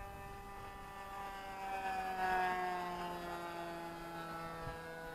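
Thunder Tiger .61 two-stroke glow engine with a quiet pipe, driving an RC model plane in flight. It grows louder about two seconds in, then drops in pitch as the plane passes by.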